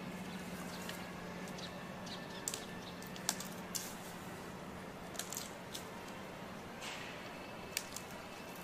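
Giant panda chewing bamboo: a series of short, sharp cracks and crunches as the stalk breaks between its teeth, coming at irregular intervals, against a steady low background hum.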